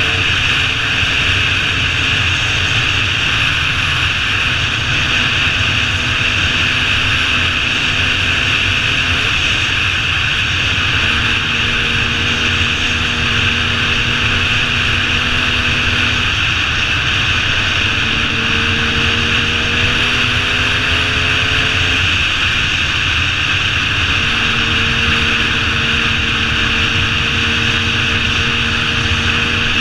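Dirt bike engine running at a steady cruising pace, heard through heavy wind noise on a helmet camera. The engine note drops away briefly and picks back up a few times.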